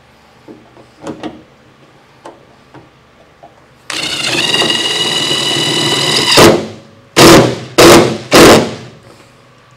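A Ridgid cordless drill drives a self-tapping screw into a sheet-metal roof seam. Its motor whines steadily for about two and a half seconds as the screw cuts in, then gives three short loud bursts as the screw is snugged down, pulling the lower panel layer up against the top one. A few light clicks of handling come first.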